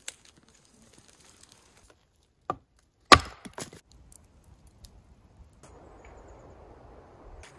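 Wood being chopped: a single sharp knock, then about a second later a loud crack followed by a few lighter knocks. After that comes a faint, steady outdoor hiss.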